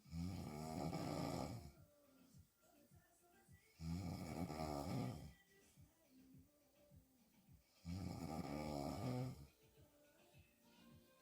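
A woman snoring hard on her back with her mouth open: three loud snores about four seconds apart, each about a second and a half long, with quiet gaps between.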